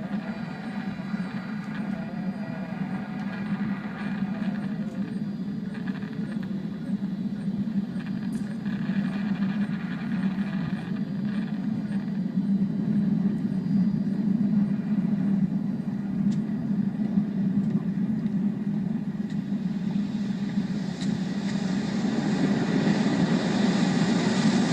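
Steady low rumble of a large ship coming in under power, growing a little louder near the end.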